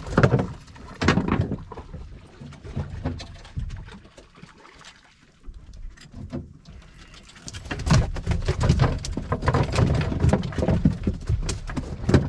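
Open-boat sea noise: an uneven low rumble of wind and water on the boat. Over it come many short clicks and knocks from the rods and reels as anglers reel in jack mackerel. It is loud at the start, drops off for a while in the middle, and picks up strongly again about two-thirds of the way through.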